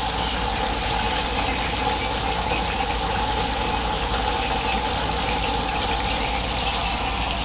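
Whole tilapia frying in a pan of hot oil: a steady sizzle with faint scattered crackles, over a steady hum.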